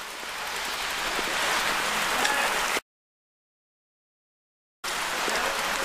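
Steady outdoor hiss, with no speech, growing slightly louder over the first few seconds. It cuts off abruptly about three seconds in to two seconds of dead silence, then resumes.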